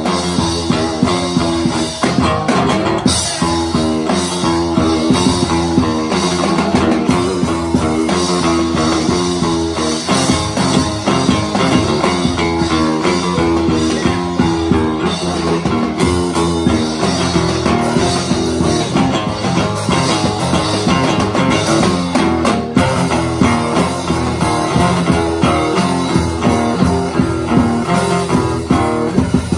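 Live band playing an instrumental passage: acoustic guitar strummed over a drum kit with cymbals, with no singing.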